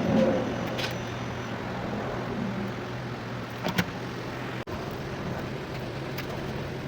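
A steady low hum under an even background rush, with a few light clicks.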